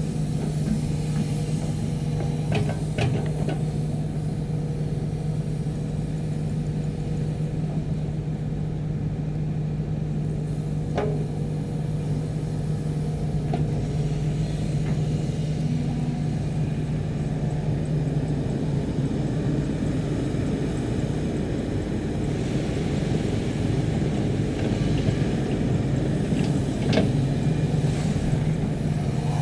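Sany SY215C hydraulic excavator's diesel engine running steadily under work, with a few brief sharp knocks.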